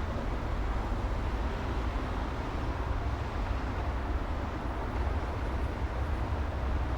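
Steady city traffic noise: a continuous low rumble of vehicles with no single car or event standing out.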